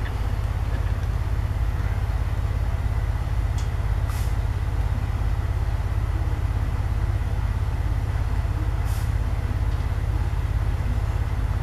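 Sony SS-H12 loudspeaker playing a loud, steady deep-bass rumble from a test track, which cuts off sharply at the end.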